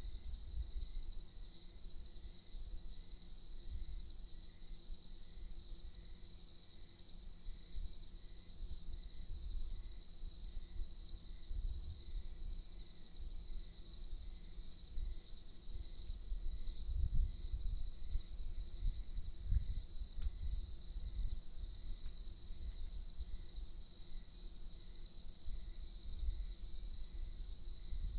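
Crickets chirping in a steady, pulsing chorus, with a low rumble underneath that swells about two-thirds of the way through.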